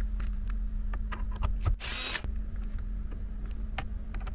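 Cordless drill-driver with a socket running in one short burst of about half a second, backing out a 10 mm dash bolt, with scattered sharp clicks of the socket and tool against the bolt and panel.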